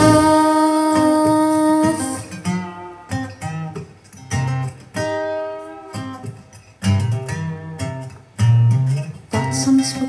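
Acoustic guitar passage from a recorded song: a held chord for about two seconds, then single plucked notes and chords that ring out and fade between short gaps.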